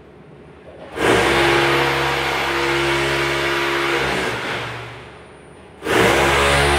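A motor starts abruptly about a second in and runs at a steady pitch. It winds down over a second or so and then starts again abruptly near the end.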